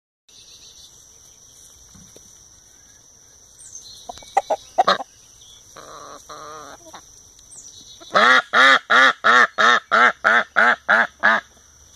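A flock of white domestic ducks and chickens calling: a few scattered calls, then a fast run of about eleven loud, evenly spaced calls, roughly three a second, in the second half. A steady high-pitched drone sits underneath throughout.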